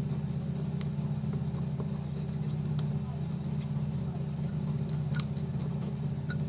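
Wire whisk beating thick cake batter in a bowl: a fast, soft patter of strokes that keeps up steadily, over a constant low hum.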